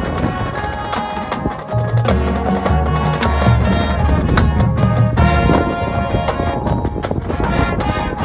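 High school marching band playing, with held wind notes over marching drums. Strong low notes come in about two seconds into the passage.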